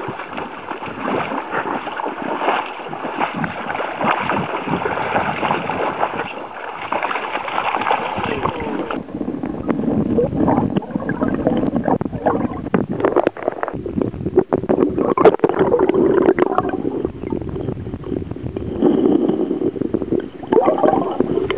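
River water rushing, with wind buffeting the microphone. About nine seconds in it changes abruptly to choppier sloshing and gurgling water with many sharp knocks, from a camera held in the river beside a salmon.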